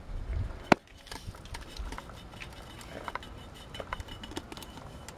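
Light handling noise with one sharp click about three-quarters of a second in, followed by scattered small ticks, as a fingertip works over the inside of a cylinder liner.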